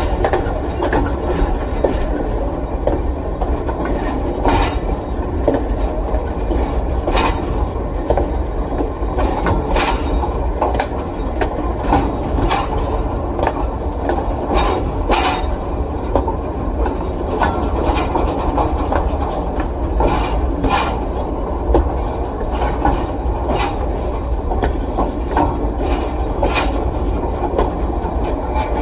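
Freight train running: a steady low rumble of the wagons with repeated sharp clicks from the wheels on the track.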